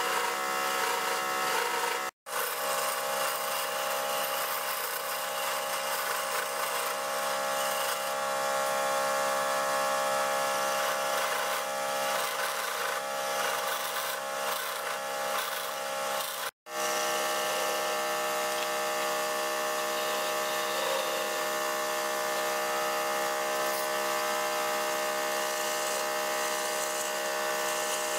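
Wood lathe running with a steady motor hum while a hand-held chisel scrapes the spinning wooden workpiece in a continuous cut. The sound cuts out for an instant twice, about two seconds in and again around sixteen seconds.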